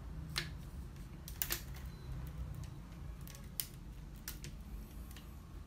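Sharp clicks and small knocks of plastic and metal parts being handled and pried off a laser printer fuser unit by hand, as its gears, wire clamp and end parts are taken off. About seven separate clicks come at irregular intervals.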